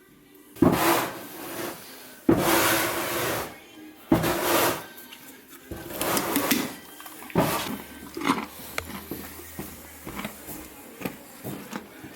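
A series of five loud rough scraping or rushing noises about every second and a half, followed by lighter clicks and knocks.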